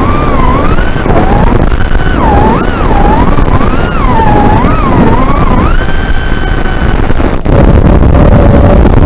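Quadcopter's electric motors whining through the onboard microphone, the pitch swinging up and down over and over with the throttle, then holding steady and higher for about a second, under a loud rush of wind and hiss. A brief dropout comes near the end.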